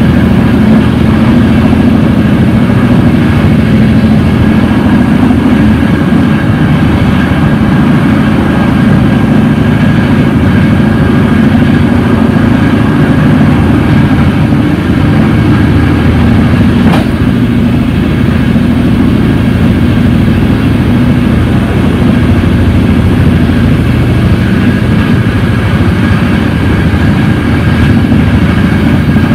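Intercity passenger train running steadily along the line, heard from inside its rear end: a constant low rumble of wheels on rail with a faint steady whine above it. There is one sharp click about 17 seconds in.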